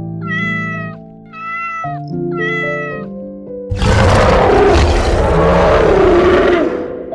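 A kitten meows three times, each meow about half a second long, over soft background music. Then a loud, rough roar lasting about three seconds follows.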